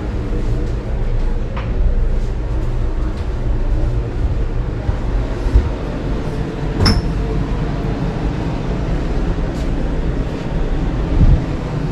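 Steady low mechanical rumble, with a few light clicks and one sharper click about seven seconds in.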